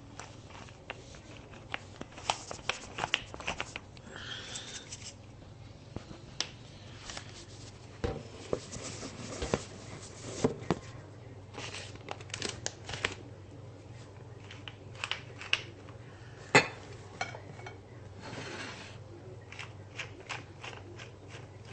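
Kitchen handling noise while topping food: irregular sharp clicks and taps mixed with short rustling and scraping, the loudest single click about two-thirds of the way through.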